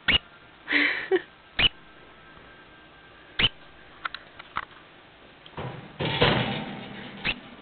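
Degu hiccuping: short, sharp squeaks at irregular intervals of a second or two, with a quick cluster a little past the middle. A longer stretch of rustling noise comes about 1 s in and again from about 5.5 s.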